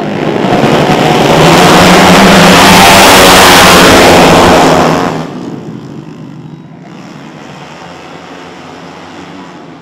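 A pack of four-stroke racing Vespa scooters launching together off the start line at full throttle. The noise swells to very loud for about five seconds, then drops off sharply to a quieter, steady drone as the pack pulls away.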